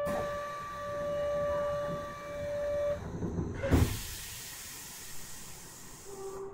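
Door-closing buzzer of a Kyoto Municipal Subway 20 series train, one steady tone that stops about three seconds in. The doors then shut with a thump, followed by a long hiss.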